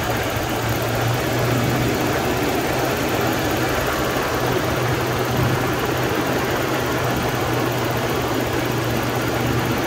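Toyota 3.0-litre V6 (3VZ-E) of a 1989 pickup idling steadily with an even hum. Its manifold vacuum is very low, which the owner takes as the sign of a vacuum leak.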